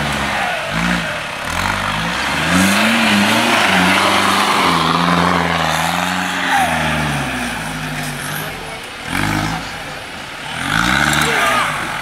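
4x4 jeep engine revving hard under load, pitch rising and falling, as it climbs and drives through loose dirt, with a hiss of soil thrown by the spinning tyres.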